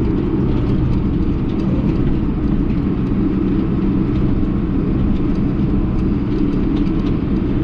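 Case 1090 tractor's diesel engine running steadily under load with an even drone, with faint clicks and rattles over it.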